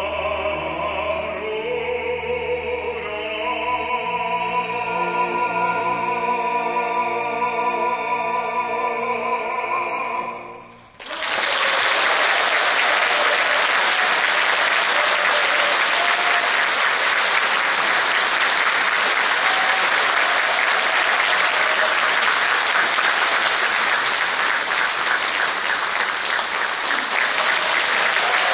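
A baritone and full orchestra sustain long closing notes, which stop together about eleven seconds in. A large audience then applauds steadily through to the end.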